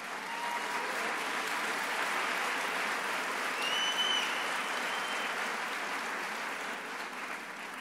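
Audience applauding, swelling within the first second, holding steady, and tapering off near the end.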